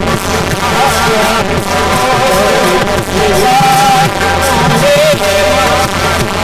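Marathi kirtan music: devotional singing of an abhang verse with instrumental accompaniment, sustained melodic lines over a steady beat.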